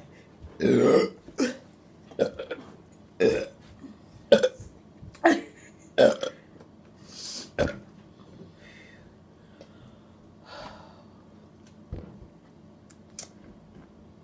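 A person burping after drinking fizzy soda: one long, loud burp about half a second in, followed by a run of short, sharp sounds about once a second that die away after several seconds.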